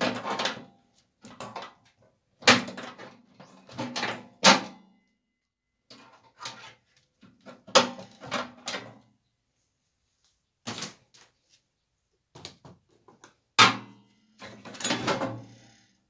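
Irregular metallic clicks, knocks and clatters of pliers and hands working inside a microwave oven's sheet-metal case as the mains filter board and power cord are pulled out, with a few louder strikes among them.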